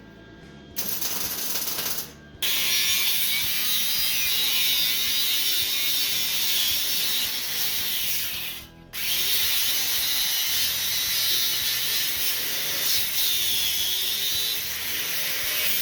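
Electric welding arc crackling and sizzling as a bead is laid on a steel mini bike frame. It comes as a short burst, then two long runs with a brief break about nine seconds in.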